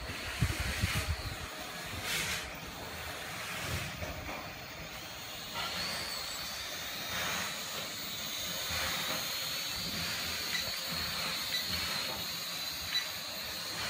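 Syma X5C toy quadcopter in flight: a steady high-pitched whine from its small motors and propellers, wavering slightly in pitch, over wind noise on the microphone that gusts in the first second or so.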